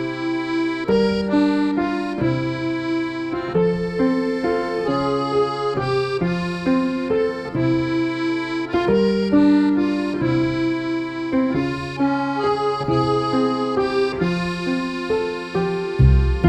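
Accordion music: a lilting tune over an alternating bass-note-and-chord accompaniment. Right at the end a fuller, louder passage comes in.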